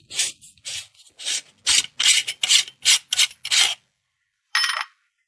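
The threaded back cap of a rechargeable hanging lamp being twisted off, its threads rasping in a quick series of about a dozen short strokes, then one more after a brief pause.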